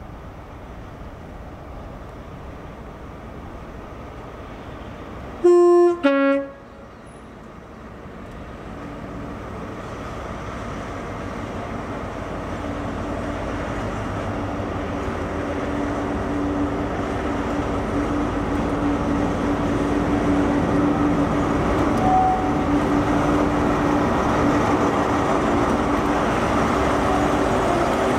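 Class 43 HST power cars 43468 and 43480 running coupled as a light engine. They sound a short two-note horn, a higher note then a lower one, about five and a half seconds in. Their diesel engines then grow steadily louder as they approach.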